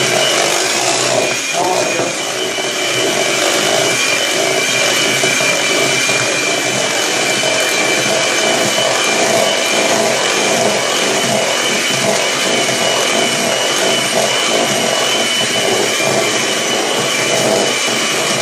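Electric mixer running steadily with a constant high whine, beating peanut butter frosting as milk and icing sugar are added.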